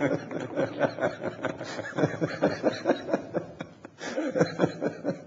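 Chuckling laughter in many short repeated bursts, with a brief pause near the end before it picks up again.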